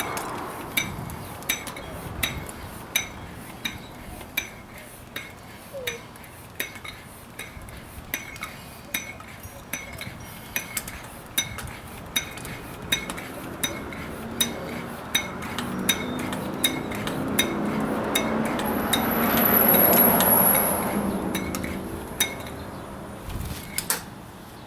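Hand-stroked bicycle pump inflating a patched child's-bike tube, a metallic clink on every stroke at about three strokes every two seconds. A rush of air under the strokes grows louder about three quarters of the way through, then eases as the pumping stops near the end.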